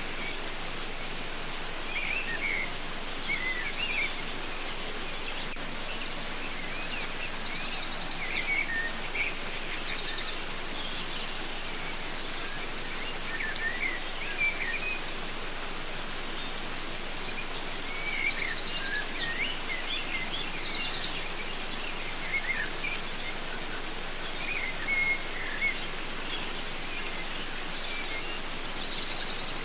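Waterfall rushing steadily, with several birds calling over it in short chirps, whistled glides and quick trills.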